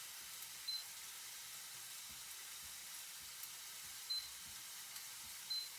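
Food sizzling steadily in a frying pan. Three short high-pitched sounds cut through, about a second in, about four seconds in and near the end.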